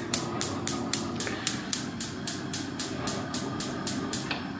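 Gas hob's spark igniter clicking about four times a second as a burner is lit, the clicks stopping near the end once the flame has caught.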